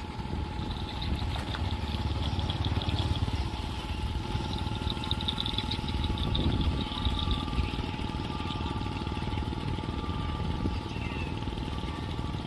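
Engine of a wooden river cargo boat running steadily at low speed, a little louder for several seconds as the boat passes close by, with a thin steady whine over the low rumble.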